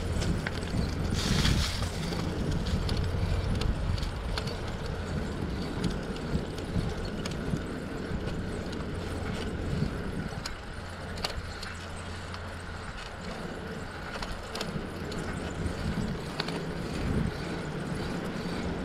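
Bicycle rolling along pavement: a steady tyre and road rumble with scattered small clicks and rattles from the bike, and a brief hiss about a second and a half in.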